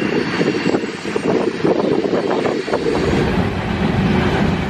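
Empty covered hopper cars of a freight grain train rolling past, with a steady rolling noise and wheels clicking over the rail joints. A little over halfway through, the sound shifts to a deeper, heavier rumble of the passing cars.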